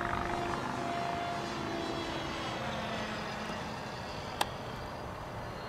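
Electric ducted fan of a model MiG-15 jet, driven by a 4900 kV motor, whining steadily in flight, with several steady tones over a rushing haze. A single sharp click about four and a half seconds in.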